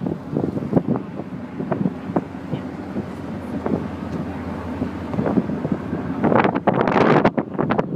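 Wind buffeting the microphone on the open deck of a ferry, in short gusts over a steady low rumble, with a harder gust about six seconds in.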